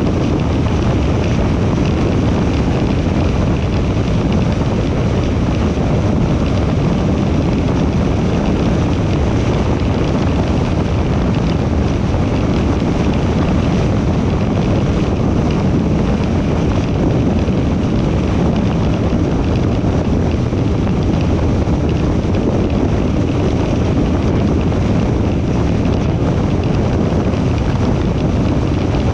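Steady road and wind noise from a car cruising at highway speed: tyre roar on the asphalt, with wind rushing over the microphone.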